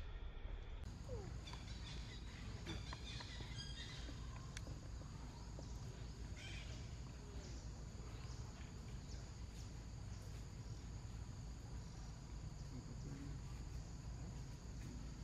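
Outdoor ambience: a steady high-pitched insect chorus over a low rumble, with a few faint clicks and rustles in the first few seconds.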